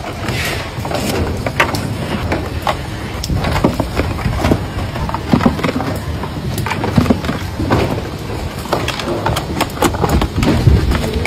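Packing-line noise: irregular clatter and knocks of trays, boxes and parts being handled, over a steady low machine rumble.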